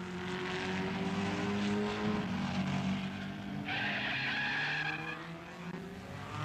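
Race car engines running fast past the track, their pitch drifting up over the first couple of seconds, then a tyre squeal lasting about a second and a half, starting near four seconds in, as the Volkswagen Beetle skids sideways.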